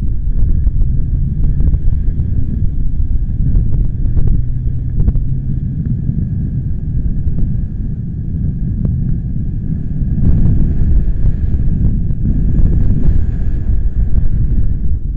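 Gusty wind buffeting the microphone: a loud low rumble that rises and falls unevenly, turning brighter and fuller with a stronger gust about ten seconds in.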